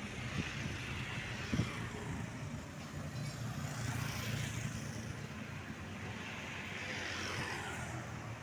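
Road traffic: vehicles passing one after another, each a swell and fade of engine rumble and tyre hiss, with no telolet horn sounding.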